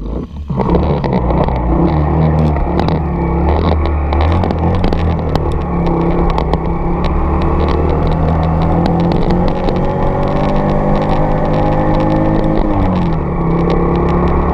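Small Honda motorcycle engine running while riding, its note climbing slowly, then dropping briefly near the end before picking up again.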